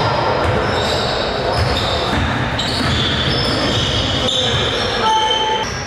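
Basketball pickup game on a hardwood gym floor: sneakers squeaking in short, high chirps at different pitches and a basketball bouncing, echoing in a large gym.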